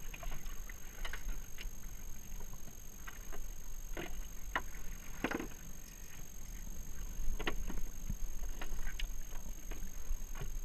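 Sea water slapping and splashing against a jet ski's hull over a low steady rumble, with scattered short knocks, the loudest around the middle.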